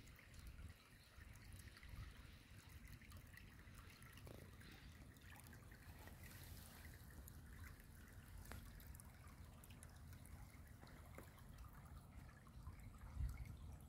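Faint trickle of a shallow stream of water running over a grassy, muddy bed, over an unsteady low rumble that grows louder near the end.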